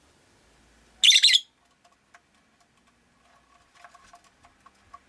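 Rosy-faced lovebird giving one short, loud, shrill call about a second in, followed by a run of faint ticks and soft chirps.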